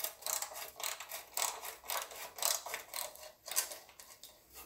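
Hand ratchet clicking as it slowly backs out a transmission oil-pan bolt, a few uneven clicks a second.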